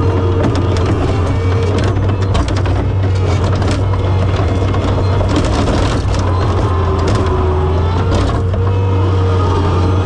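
John Deere 675B skid steer's engine running steadily with a whine that wavers in pitch. The steel bucket scrapes and knocks repeatedly as it chips at frozen manure and ice.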